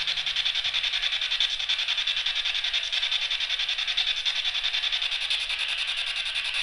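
Insects chirping: a steady high-pitched trill made of fast, even pulses.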